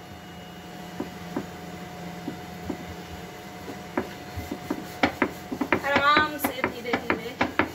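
Wooden rolling pin knocking and clattering on a rolling board as roti dough is rolled out: quick repeated wooden clacks that start about four seconds in, after a quieter stretch with a steady low hum.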